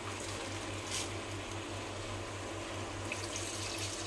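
Coconut water being poured into a cooking pot: a steady trickling splash of liquid, with a low steady hum underneath.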